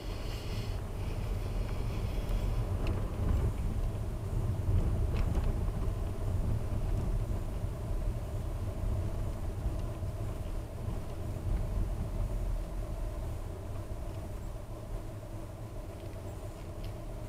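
A car driving slowly, with a steady low engine and tyre rumble heard from inside the cabin and a few faint ticks.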